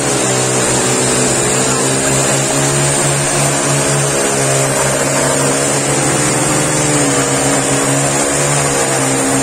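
Small engine of a handheld vibrating ballast tamper running steadily at speed while its tines pack ballast under a railway sleeper, the pitch wavering slightly.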